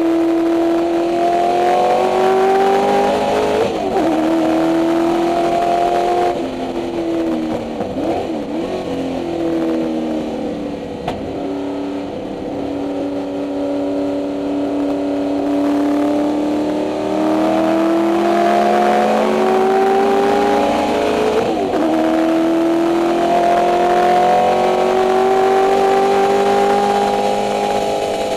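Ford 289 Windsor V8 of a 1964 Mustang race car, heard from inside the cabin at racing speed. The revs climb and break at a gear change about four seconds in, then the engine lifts off and runs lower through the middle before pulling up through the revs again, with another gear change shortly before the end.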